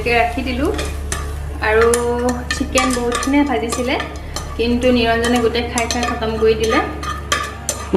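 Slotted metal spatula scraping and clicking against a wok as stir-fried vegetables are scooped out onto a plate. Held pitched tones that slide up and down are heard along with the scrapes.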